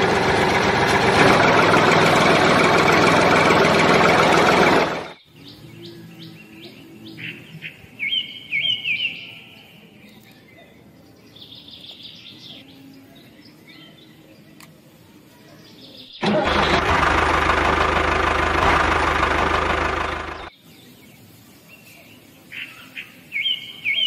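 Loud, steady engine-like running noise for the first five seconds and again for about four seconds in the second half, each stretch cutting off abruptly. Short bird chirps come in the quieter gaps between them.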